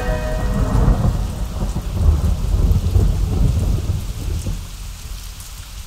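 Rain falling with low, rolling thunder, the rumble swelling about two seconds in and then fading away.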